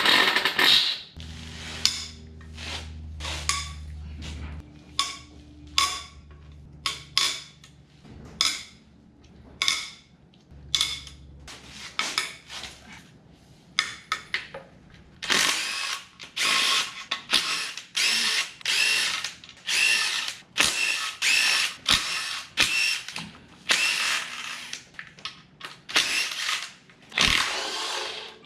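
Handheld power tool spinning bolts out of an engine's covers during a teardown, in many short bursts of under a second each. The bursts come closer together and run longer in the second half.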